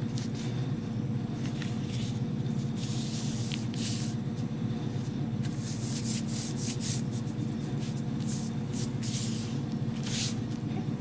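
Hands smoothing and pressing a print glued with a glue stick down onto black paper: a series of brief dry rubbing swipes of palms over paper, over a steady low background hum.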